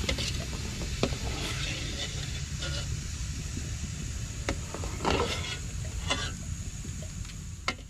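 Metal spoon clinking and scraping against a steel pot and wire strainer while boiled glutinous rice balls are scooped out of hot water: a handful of sharp clicks with a longer scrape and splash about five seconds in. Underneath is a steady low rumble and a thin high whine of insects.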